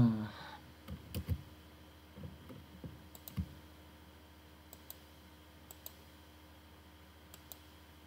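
Computer mouse clicking: several clicks in the first three and a half seconds, then a few fainter ones spaced out over the rest.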